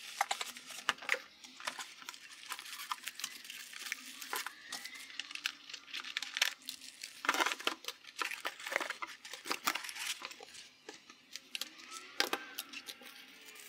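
A keyboard being unboxed: its cardboard box and plastic wrapping are handled and opened, with crinkling, tearing and rustling and many small clicks and knocks throughout. The handling is busiest about halfway through.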